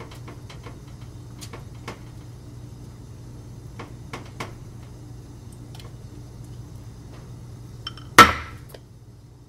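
Faint scattered taps and clicks of a basting brush working garlic oil onto bread slices on a wire rack, over a low steady hum. About eight seconds in, one loud, sharp glass clink with brief ringing as the small glass dish of oil is set down on the granite counter.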